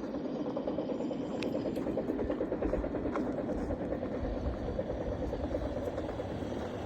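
Steady low rumble with a fast, even rattle from a heavy vehicle running close by.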